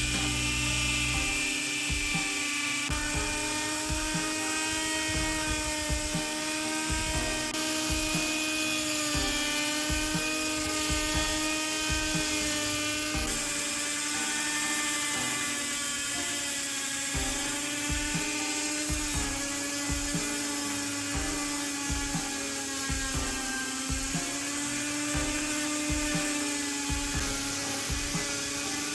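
Small high-speed electric rotary tool running steadily, with a high whine whose pitch wavers slightly, as it buffs polish into a miniature car's paint.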